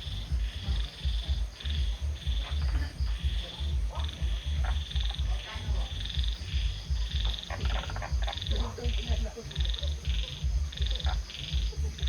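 Rhythmic animal calling: high short chirps repeating about twice a second, over an irregular low rumble.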